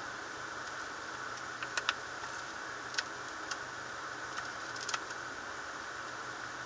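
Steady hiss with a few short, sharp clicks: two close together about two seconds in, one at three seconds, and a small cluster near five seconds.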